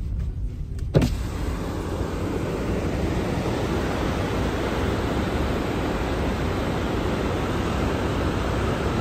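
A sharp knock about a second in, then the steady roar of water pouring over the New Croton Dam's stepped masonry spillway into the churning river below.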